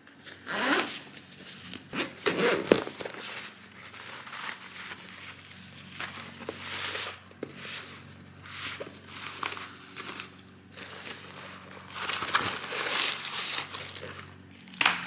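Zipper being pulled open on a DJI fabric drone shoulder bag, with rustling of the bag's fabric as it is opened and handled, in irregular bursts.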